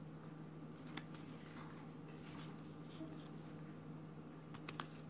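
Yu-Gi-Oh trading cards sliding against one another as a handful is thumbed through: faint soft scrapes and a few light clicks, a cluster of clicks near the end.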